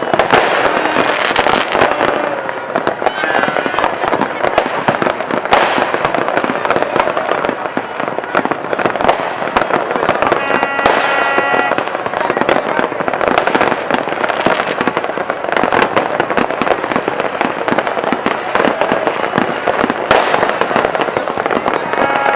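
New Year fireworks and firecrackers going off in a dense, continuous crackle of many overlapping bangs and pops. A brief pitched, horn-like tone sounds about halfway through and again near the end.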